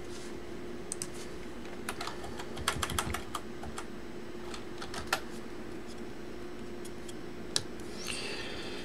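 Sparse light clicks and taps on a desk, a quick run of them about two to three and a half seconds in and single ones later, over a faint steady hum.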